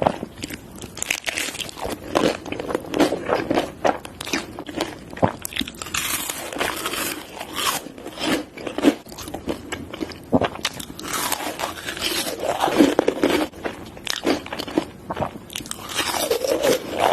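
Close-miked eating: crunchy bites and chewing of Korean food, with many quick, crisp crackles coming irregularly.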